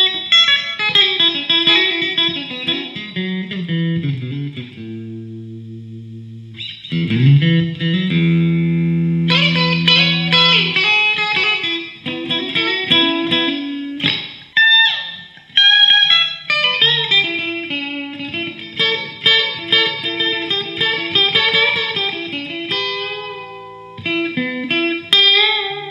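Guitar instrumental played as an outro: quick runs of single notes, a long held note that fades away about five seconds in, and sliding string bends around the middle.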